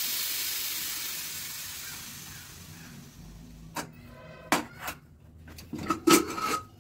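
Aluminium pressure cooker letting off steam with a steady hiss as its pressure is released by hand, fading out over about three seconds. A few sharp metal clinks and knocks follow, one ringing briefly.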